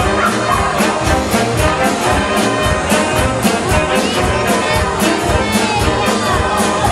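Recorded music with brass instruments over a steady, even beat.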